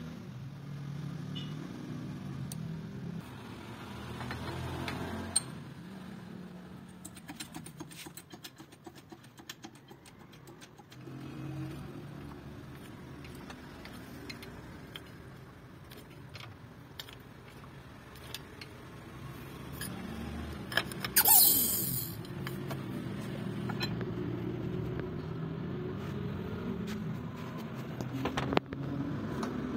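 Metal clicks and clinks of an Allen key and steel press-jig parts being handled over a low steady rumble, with one short loud burst of hiss about two-thirds of the way through.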